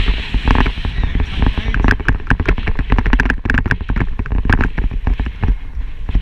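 Wind buffeting the microphone of a bicycle-mounted GoPro, a heavy low rumble, with a rapid, uneven run of clicks and rattles as the bike rolls over rough, cracked asphalt.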